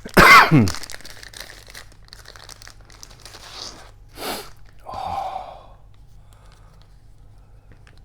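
Plastic shrink-wrap on a pack of cards being torn open and crinkled: a loud rip with a falling squeal just after the start, then crackling handling of the film with a couple of shorter rustles, dying away after about six seconds.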